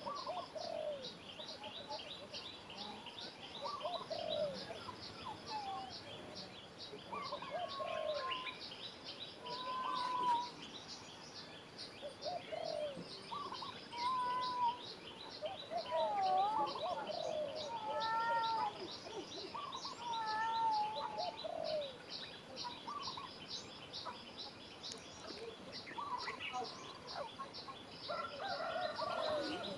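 Birds chirping and calling: a fast, steady run of high ticks for most of the time, with short rising and falling calls over it.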